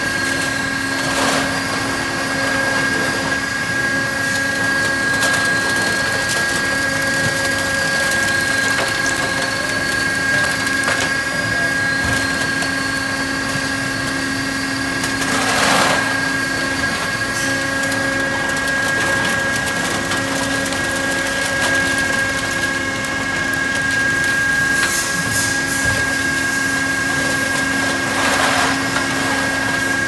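McIntyre M20 can and metal baler running with a steady machine hum while it compresses a load of aluminium drink cans. The cans crunch and rustle now and then, loudest about halfway through.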